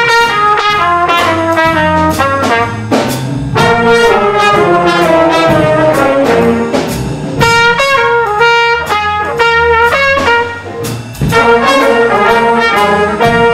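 Brass instrument playing short, mostly stepwise blues-scale phrases over a B-flat blues backing of bass and drums, echoing the sung scat lines.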